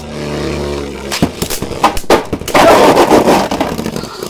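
Beyblade Burst tops spinning in a stadium with a steady hum, then clashing in rapid clacks and knocks from about a second in, the hardest hits coming thick and fast near the middle of the battle.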